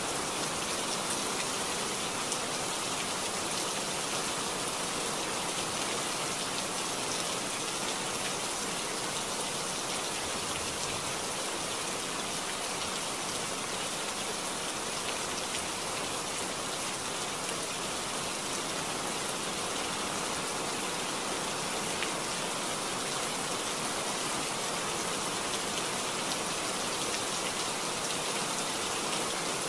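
Heavy rain falling steadily, a dense, even hiss that does not let up.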